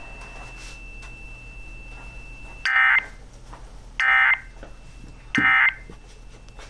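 Emergency Alert System End of Message signal over weather radio: three short identical bursts of warbling two-tone digital data, about a second and a third apart, marking the end of the alert. A faint steady whistle and radio hiss lie underneath.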